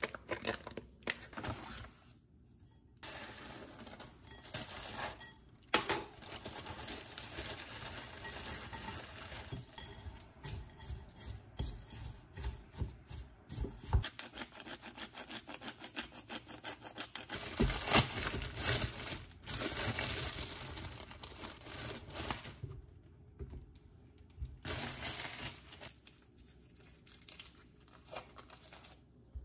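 Small clicks, clinks and taps with stretches of rustling and crinkling, like food, dishes and packaging being handled.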